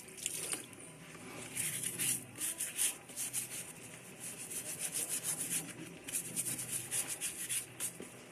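Water from a garden hose splashing on concrete while hands scrub a sandal under the stream: a steady hiss with quick, uneven rubbing strokes, several a second.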